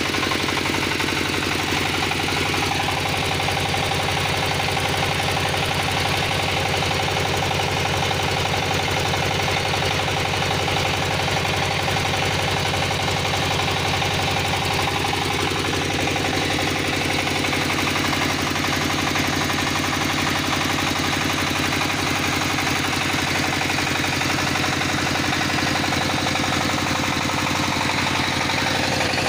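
Inda 28 PK diesel engine of an assembled diesel generator set running steadily at constant speed with a knocking diesel beat, turning an ADK 22.5 kVA generator.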